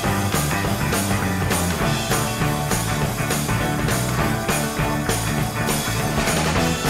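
Rock song with guitar and a steady beat, about two beats a second.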